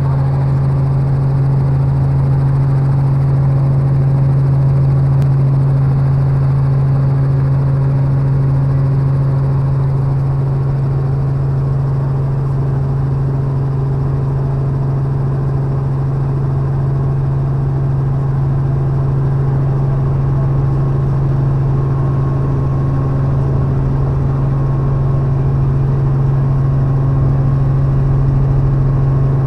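Robinson R44 helicopter's piston engine and rotor system running on the ground, heard from inside the cabin: a loud, even drone with a strong low hum that holds steady throughout.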